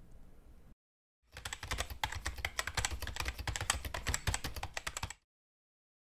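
Typing on a computer keyboard: a quick, dense run of keystrokes that starts a little over a second in, lasts about four seconds and stops abruptly.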